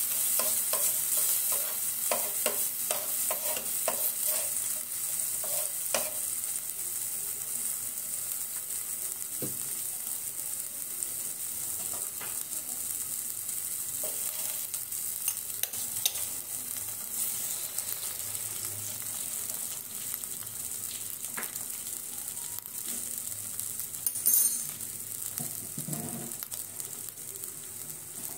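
Chopped onion and tomato sizzling in oil in a frying pan, with a metal spoon scraping and tapping against the pan during the first few seconds. About four seconds before the end, a short louder burst of sizzling as a raw egg goes into the hot pan.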